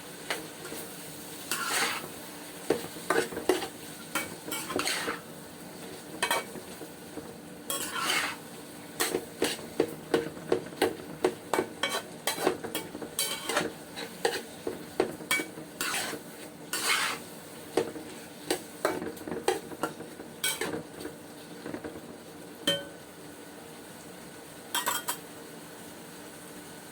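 A utensil stirring and scraping in a cooking pot, with many quick clinks against the pot. The clinks come thickest through the middle and thin out near the end, over a steady low sizzle of pork sautéing with fish sauce.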